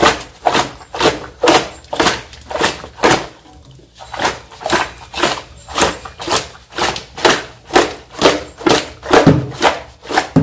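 Hands mixing seasoned raw chicken pieces with vinegar and spices, a rhythmic wet squelching and slapping about twice a second, with a short pause partway through.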